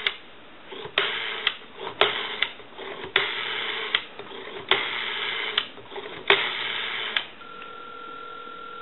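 Kellogg rotary telephone dial being dialed digit by digit: a sharp click as each digit is pulled off, then the dial whirring and clicking back as it returns. After about seven seconds the dialing stops and a steady tone comes up on the line.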